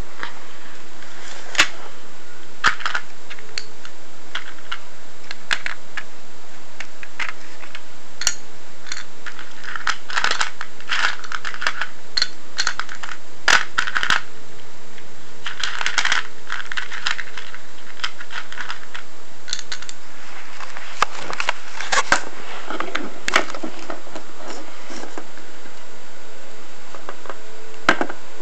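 Small hard plastic toy pieces clicking and clattering irregularly as they are handled and set down, in scattered bursts of clinks and taps.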